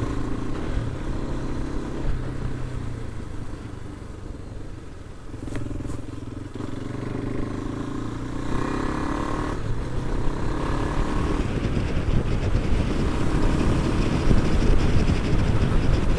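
KTM Adventure motorcycle engine and wind rush heard from the rider's seat. The engine eases off and the sound dips about four seconds in. It then picks up again and grows steadily louder as the bike accelerates.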